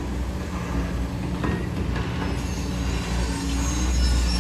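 Steady low diesel rumble of heavy demolition excavators working, with a couple of faint knocks about a second and a half in.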